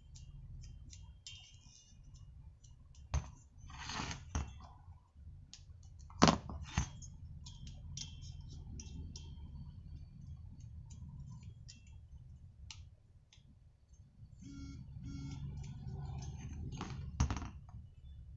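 Small clicks, knocks and rustling as a two-stroke trimmer cylinder and small tools are handled on a workbench, over a low steady hum. The sharpest knocks fall about six seconds in and again near the end.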